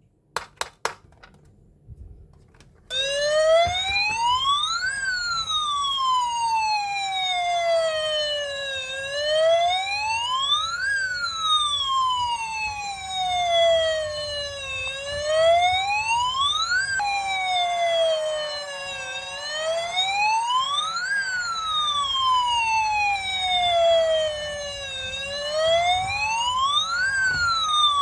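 A toy police car's electronic siren wails in a slow, even rise and fall, each cycle about six seconds long. It starts abruptly about three seconds in, after a few clicks of handling.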